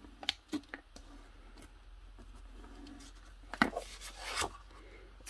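An acetate sheet and patterned paper being handled and pressed down by hand as the acetate is re-stuck onto double-sided tape. Light scattered clicks and crackles, then sharper clicks and a brief rubbing swish about four seconds in.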